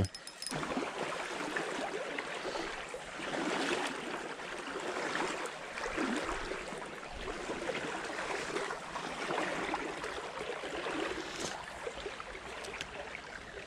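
Small stream running fast over a shallow riffle: a steady rush of flowing water.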